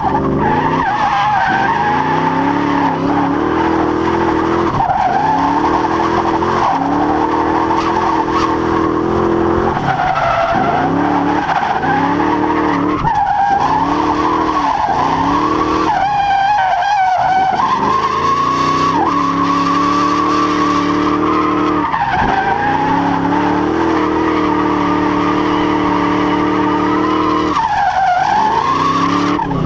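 Fox-body Mustang's 5.0 V8 at high revs while drifting, heard from inside the car, with tyres squealing continuously. The engine note drops sharply and climbs back several times as the revs are let off and picked up again.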